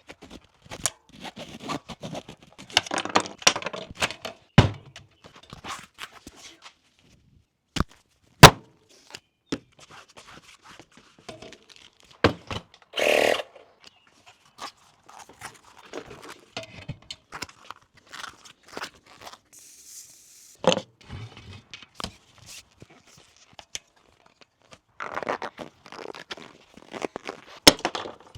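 Bicycle repair work: scattered knocks, clicks and scrapes of tools and parts being handled, with one sharp knock, the loudest, about eight seconds in.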